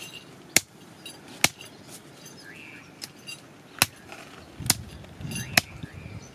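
Machete chopping raw meat on a wooden log: about half a dozen sharp chops at uneven intervals, four of them loudest.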